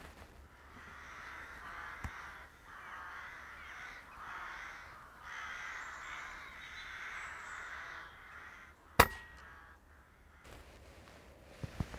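Carrion crow cawing repeatedly for about eight seconds, then a single sharp crack about nine seconds in, the loudest sound: the shot of a Daystate Red Wolf pre-charged pneumatic air rifle.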